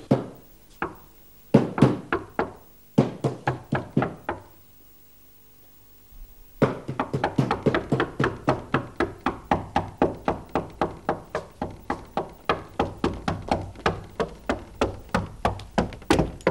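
Meat mallet pounding raw meat on the kitchen table: a few short groups of blows, a pause, then about seven seconds in a fast even run of about four blows a second.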